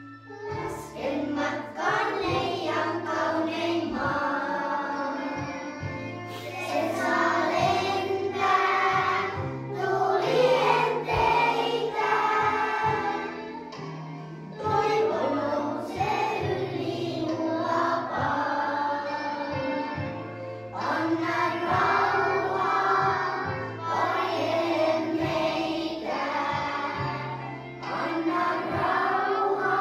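A song sung by a choir with instrumental backing; the singing comes in just after the start.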